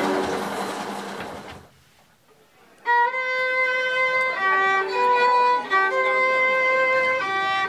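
A loud, noisy sound with a held chord in it fades away over the first second and a half. After a short silence, a violin comes in about three seconds in with slow, sustained bowed notes, moving back and forth between two pitches.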